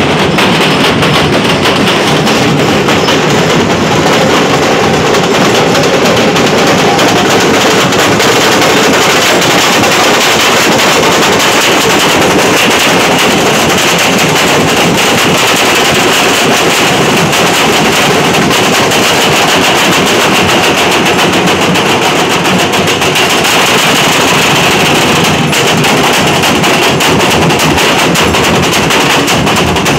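Nashik dhol ensemble of dhol barrel drums, with the tasha that usually plays alongside, beaten in a dense, fast, continuous roll. It is very loud and unbroken, a rattling wall of strokes.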